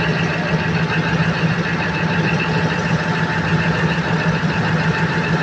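Freshly overhauled Cummins KTA50 V16 diesel engine idling steadily on its test run.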